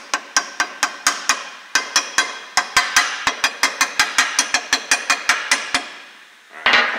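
Hammer tapping rapidly, about four strikes a second, driving a tight-fitting hub-centric ring cut from steel exhaust pipe onto a truck's rear axle hub. The metal-on-metal taps pause briefly about a second and a half in, then carry on for several seconds more before stopping.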